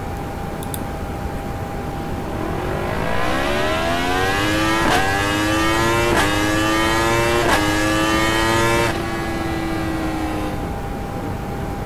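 Yamaha YZF-R1 inline-four engine through an Akrapovič Evolution Line titanium exhaust, accelerating hard. The engine note rises steadily, broken by three quick upshifts, then cuts off suddenly about nine seconds in, leaving a short fading tail.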